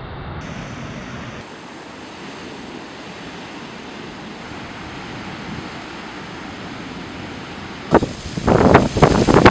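Steady rush of ocean surf with wind noise on the microphone. About eight seconds in, a much louder, uneven noise starts abruptly, coming in quick pulses.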